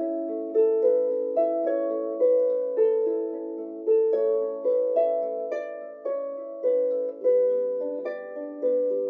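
Improvised music on a plucked string instrument: single notes and small chords are plucked at a slow, even pace, each one ringing on and overlapping the next.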